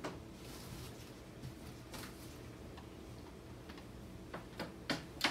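Small model-kit parts handled on a tabletop: a few light, irregular clicks and taps over quiet room tone, with several sharper ones close together near the end.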